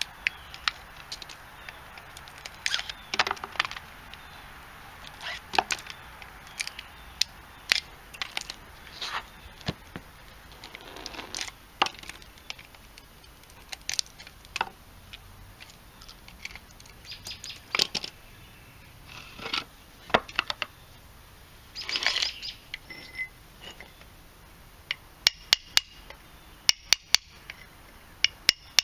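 Pliers pulling the slot wedges out of a burned-out compressor motor stator: scattered clicks and short scrapes as the wedges come free and are dropped. About three seconds before the end, a quick run of sharp hammer blows on a steel punch starts, driving the burned copper windings out of the stator core.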